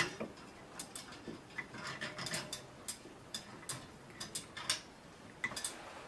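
Light, irregularly spaced metallic ticks and clicks from a spoked bicycle wheel turning slowly in a truing stand.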